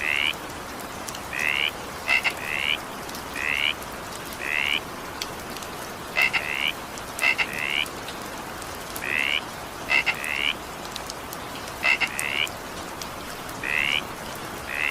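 Frogs croaking over a steady hiss of rain: short high calls repeating about once a second, some of them in quick pairs.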